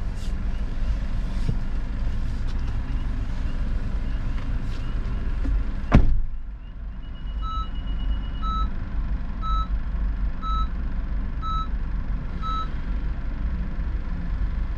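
A truck's reversing alarm beeps six times, about once a second, over a steady low vehicle rumble. A sharp knock comes just before the beeping starts.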